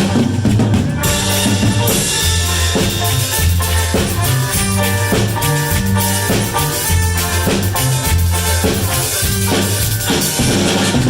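Cumbia band playing an instrumental passage, with a steady beat from drum kit and percussion over a repeating bass line.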